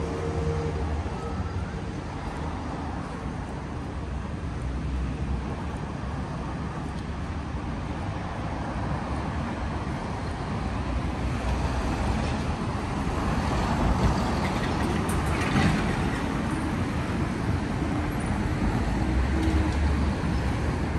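Road traffic noise on a city street: a steady rumble of passing vehicles that grows louder from about halfway through.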